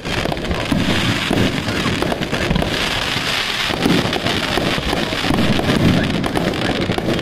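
Fireworks crackling overhead: a dense, continuous hiss of many small pops, with a few heavier low bursts.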